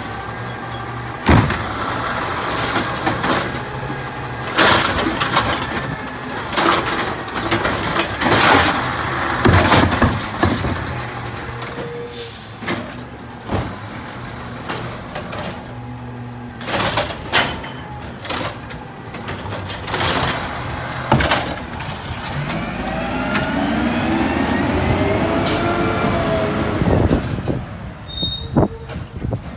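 Peterbilt 320 automated side-loader garbage truck with an Amrep body, engine running while its N3 arm grabs, lifts and dumps a recycling cart, with repeated loud bangs from the cart and arm through the first half. Later the engine revs up in rising sweeps as the truck pulls away.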